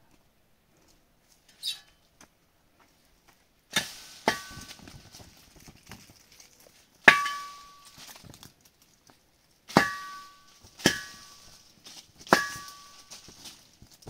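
A long pole knocking the branches of an apricot tree: six sharp knocks, some ringing briefly. Each knock is followed by a short rustle of shaken leaves and apricots falling onto a plastic sheet.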